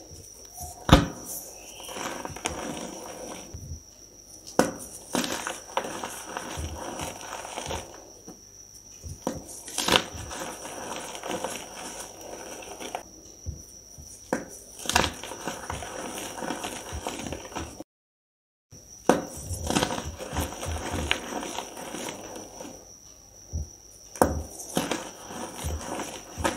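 Reformed gym chalk crumbling and crunching between the fingers: a dusty, powdery crackle broken by sharp crunches as chunks snap, with a faint steady high whine behind it. The sound drops out completely for under a second about two-thirds of the way through.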